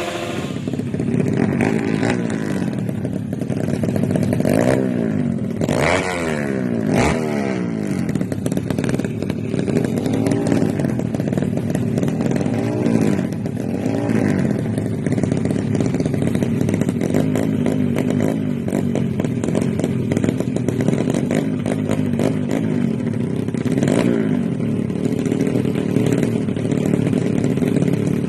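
Bored-up Kawasaki KLX single-cylinder four-stroke engine, set up for drag racing, running steadily and revved up and down in quick blips several times.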